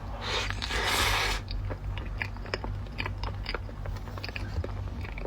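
Close-miked chewing and biting of a dessert, with many small crunchy clicks and a short breathy rush about a second in.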